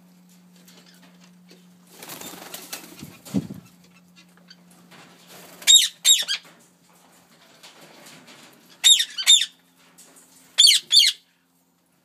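White Indian ringneck parakeet calling three times, each a quick pair of high notes. Before the first calls there is a rustle ending in a low thump.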